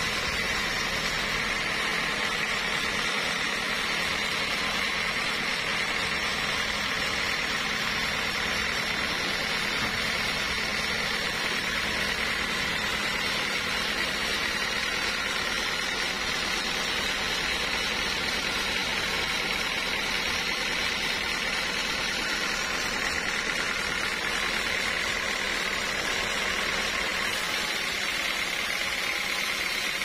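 Band sawmill running steadily, its blade sawing lengthwise through a large mahogany log, with a steady high whine over the cutting noise.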